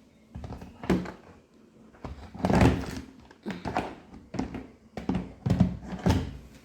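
A run of dull thuds and knocks, about seven in all, spaced irregularly, the loudest about two and a half seconds in.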